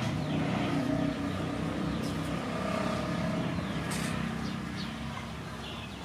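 A motor vehicle's engine running steadily, easing off slightly near the end.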